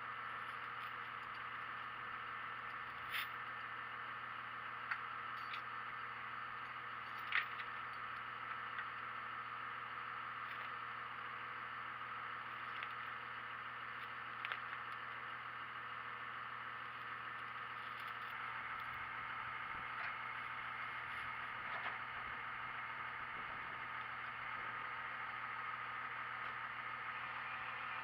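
MIG welder's arc sizzling and crackling steadily, with a few sharp pops over a low steady hum.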